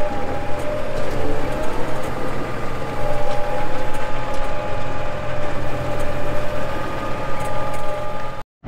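Large farm tractor's diesel engine running steadily, with a steady whine over the rumble and a few faint clicks. A brief dropout comes just before the end.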